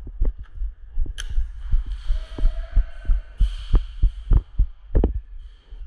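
Irregular low thumps and knocks, about two or three a second, with a sharp click about a second in.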